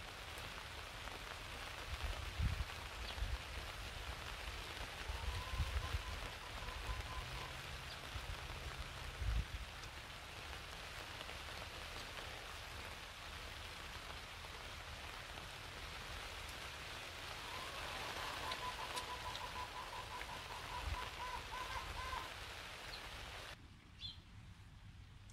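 Rain falling steadily on a tarp shelter, with a few scattered low thumps in the first half. The rain noise cuts out abruptly near the end.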